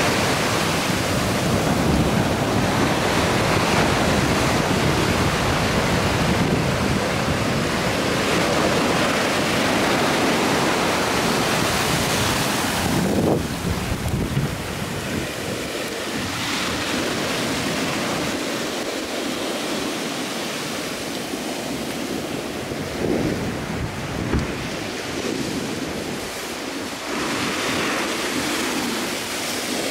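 Ocean surf washing on a beach, with wind buffeting the microphone. The low wind rumble eases about halfway through.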